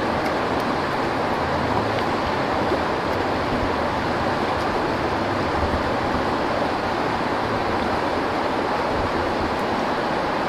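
Steady rush of stream water flowing over rocks.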